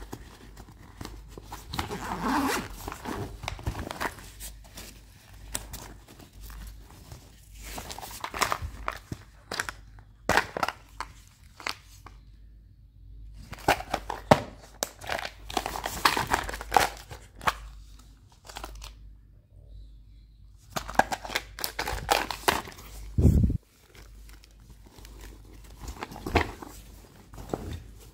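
Handling noise from a fabric sling bag: nylon rustling and a zipper being worked, with clicks from a clear plastic lure box being handled, in irregular bursts with a few short pauses.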